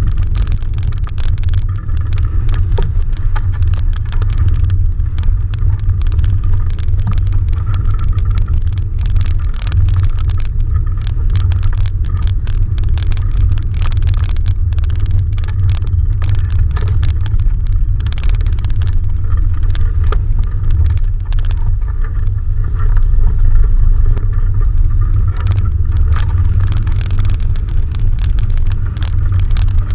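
Wind buffeting the microphone of a camera mounted at the top of a sailing dinghy's mast: a loud, steady low rumble with frequent small clicks and rattles.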